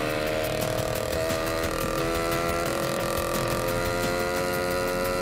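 Ported 66/80cc China Doll two-stroke engine of a motorized bicycle running hard through a custom YZ85 expansion-chamber exhaust as the bike accelerates, its pitch stepping up and down slightly with the throttle. The engine is still warming up.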